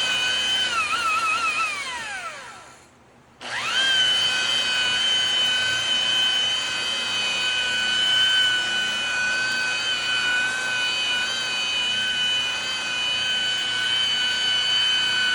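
Makita high-speed rotary buffer with a wool pad: its motor whine wavers, then winds down to a stop about three seconds in. It starts again sharply and runs at a steady high whine.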